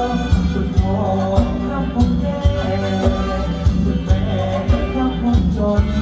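Live band playing Thai ramwong dance music through a PA: a steady drum beat about twice a second under a melody line.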